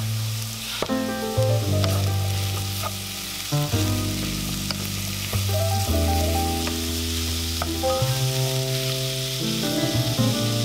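Grated carrot, onion and chopped bell peppers sizzling in hot oil in a frying pan while stirred with a wooden spatula, with a few light clicks. Background music of held notes changing every second or two plays underneath.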